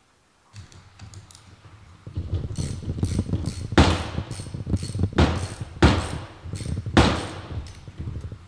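Socket ratchet and wrench working the axle bolt of a Scott 3200 tailwheel to take it apart: a run of ratcheting and metal tool rattle, with four sharp knocks in the second half.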